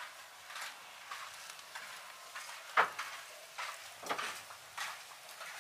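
Kittens' paws crackling and rustling over dry litter and debris on the ground, in short irregular bursts, with a sharper crack about three seconds in and another about a second later.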